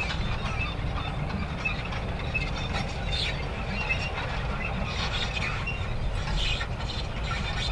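Manure spreader running: a continuous low mechanical rumble overlaid with irregular clattering and rattling.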